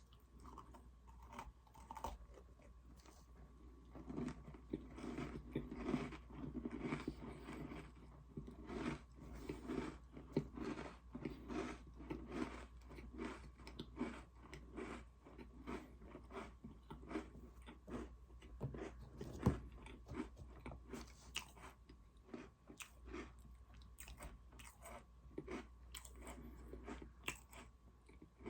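Close-up chewing and crunching of Oreo cookies, with irregular bites and steady crunchy chewing throughout.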